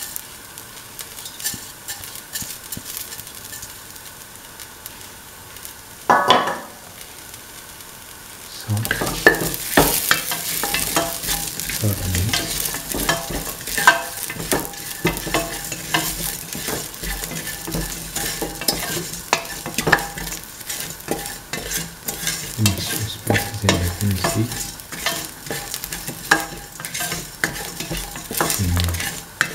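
Shallots, garlic and fennel seeds sizzling in hot oil in a stainless steel pan while they are stirred, with frequent small scraping clicks of the utensil on the metal. The sizzle gets louder and busier about nine seconds in.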